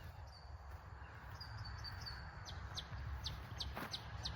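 A bird calling in a run of short, high chirps, with quick downward notes about twice a second in the second half, over a faint low rumble.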